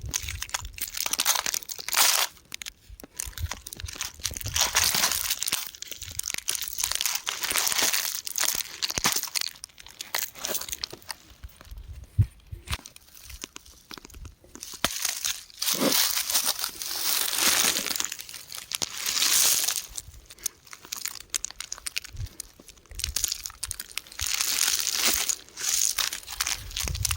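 Rock crumbling, crunching and crackling in irregular bursts with scattered sharp clicks and short pauses between.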